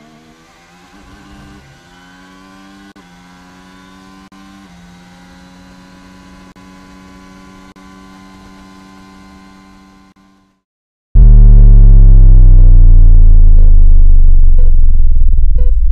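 Formula 1 car engine heard faintly, its pitch climbing and dropping back at each of about three gear changes, then holding steady before fading out about ten seconds in. After a brief silence a very loud, deep sound effect with a falling tone starts about eleven seconds in.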